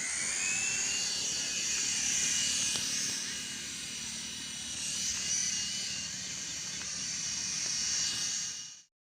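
Small electric RC helicopter's motors and rotors whirring in flight, a high whine that shifts in pitch, rising near the start, then cuts off near the end.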